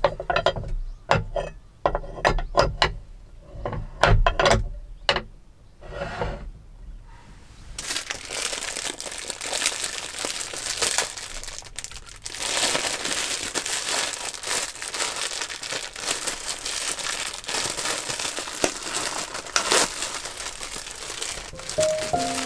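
A cast hot sandwich maker being handled on a wooden table: a run of sharp clacks and knocks as its plates and latch are worked. About eight seconds in, this gives way to a plastic bread bag crinkling steadily as sliced bread is pulled out.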